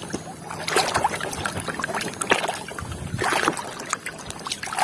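Water splashing and sloshing as a muddy toy vehicle is washed by hand in a container of water, with a few small clicks and knocks of the toy being handled.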